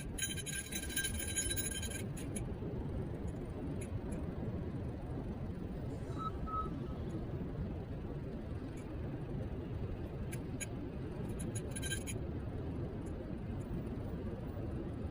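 Steady low rumble of wind and road noise while riding a Niu KQi3 Pro electric kick scooter, with brief bursts of light rattling clicks near the start and again about ten seconds in.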